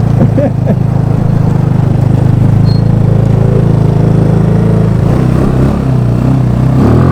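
GY6 150cc single-cylinder four-stroke scooter engine in a Power Wheels jeep running at steady high revs, easing off slightly about five seconds in.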